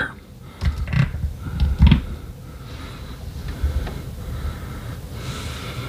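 Handling noise as test-lead probes are pushed into the sockets of a precision resistor box: a few light clicks and knocks in the first two seconds, then a low steady background rumble.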